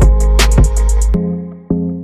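Background music: a steady electronic beat over bass, which drops out about a second in, leaving held chords that are struck again near the end.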